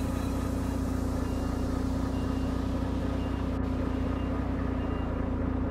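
Heavy diesel engine running steadily at idle, an even low drone with no change in speed.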